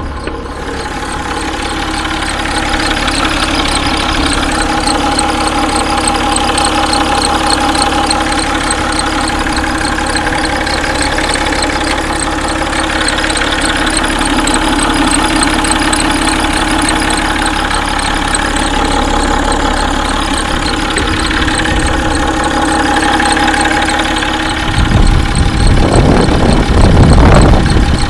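Peugeot 607's 2.7 HDi V6 diesel running hot with a steady whine over the engine noise: the sound of a failing water pump. It grows louder with a deeper rumble about 25 seconds in.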